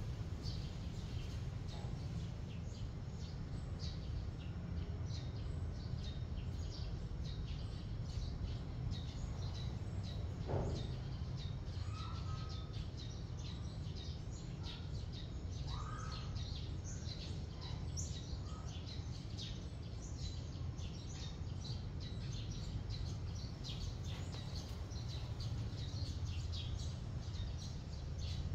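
Small birds chirping busily throughout, over a steady low rumble, with a single knock about ten seconds in.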